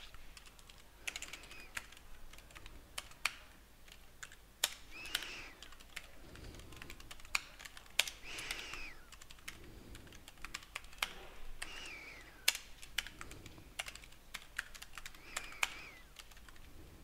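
Typing on a computer keyboard: irregular key clicks with short pauses, a few of them sharper and louder than the rest.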